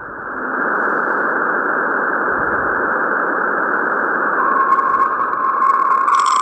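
Eerie 'space sounds' audio: a dense, steady hiss like radio static that swells in over the first second, with a steady whistling tone coming in about four seconds in.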